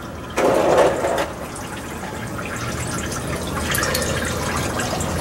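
Engine coolant running out of the open freeze-plug hole in a 4BT Cummins block: a sudden gush about half a second in, settling into a steady pouring flow. The freeze plug has just been knocked out to fit a block heater.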